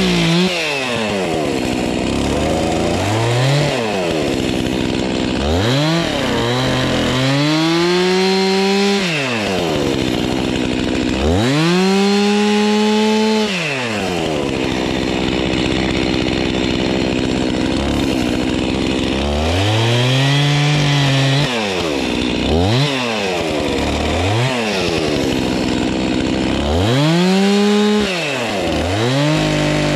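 Stihl MS 362 two-stroke chainsaw bucking a felled log, its engine repeatedly revved up, held at high speed for a second or two, then let back down to idle, with shorter throttle blips in between.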